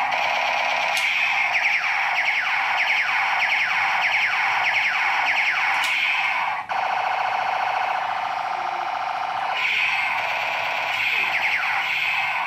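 Battery-powered toy gun's electronic sound effects through its small speaker: a warbling, alarm-like electronic tone with a run of quickly repeated falling laser zaps. The pattern changes about two-thirds of the way through and cuts off at the end.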